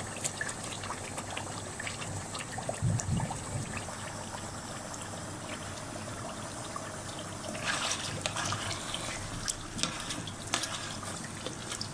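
Chicken green masala gravy bubbling in the pan on the flame: a steady simmering hiss with scattered light clicks, louder for a moment about eight seconds in.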